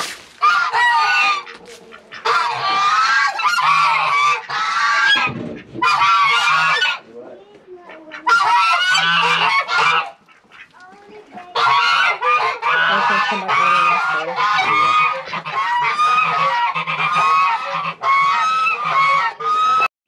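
A flock of white domestic geese honking over and over in loud, rapid runs of calls, with a short lull about ten seconds in.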